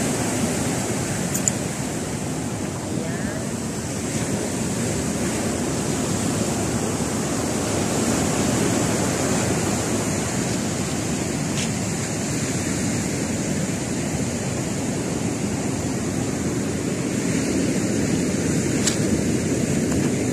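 Sea surf breaking and washing up a pebble beach, a steady rushing noise.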